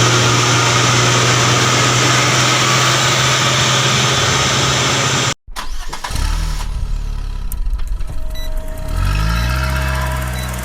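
Heavy diesel engines of concrete mixer trucks running loud and steady. It cuts off abruptly about halfway, and then a truck's diesel engine runs low and revs up with rising pitch near the end.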